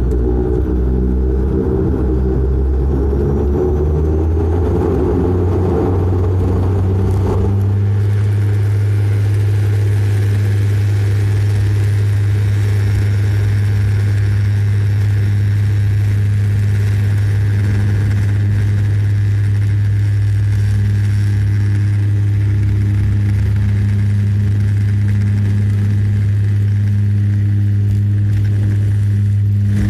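Cabin sound of a De Havilland Canada Dash 8-400's Pratt & Whitney PW150A turboprops and six-bladed propellers. About seven seconds in, the engines go from a mixed taxi sound to a loud, steady, low propeller drone at takeoff power, which holds through the takeoff roll.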